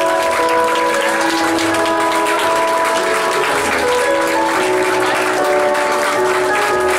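Steady applause over background music with a slow melody of held notes.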